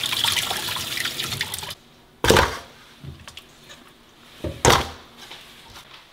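Kitchen tap running as a whole fish is rinsed under it, the water cutting off suddenly about two seconds in. Then two loud thuds a couple of seconds apart, with a few small knocks between.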